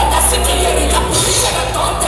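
Loud dance music playing, with a steady heavy bass and a clear beat.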